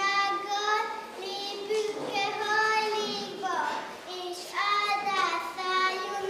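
A child singing solo, a sing-song melody with long held notes.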